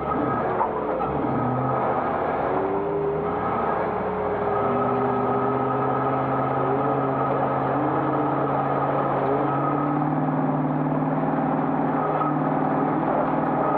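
1991 Classic Range Rover's 3.9-litre V8 engine running hard under race load. The revs rise and fall over the first few seconds, then hold nearly steady from about four and a half seconds in.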